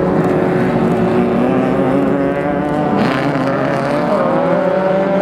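Off-road race car engine running hard, its pitch shifting up and down as the revs change, with a burst of hiss about three seconds in.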